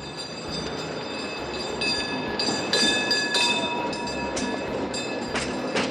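Tram running on its rails: a steady rumble with thin, high whining tones that come and go over it.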